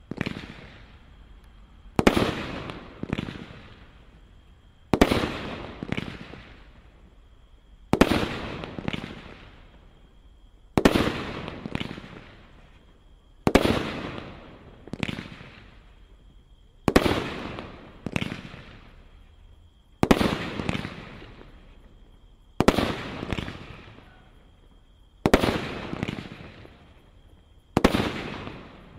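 Multi-shot aerial firework cake firing single shells about every three seconds, about ten in all. Each shot is a sharp report followed about a second later by a second one, the launch and the burst.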